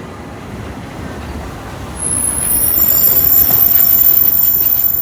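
Tram running on street rails with a rumble, joined about two seconds in by a loud, high-pitched squeal of several steady tones from the wheels on the rails; the squeal cuts off near the end.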